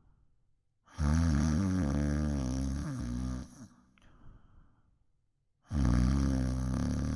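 Loud snoring: two long, low, rasping snores, each about two and a half seconds, a couple of seconds apart.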